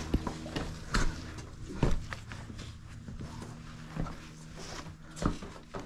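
Hikers' shoes stepping and scuffing on sandstone while scrambling up a rock slope: a few sharp footfalls about a second apart.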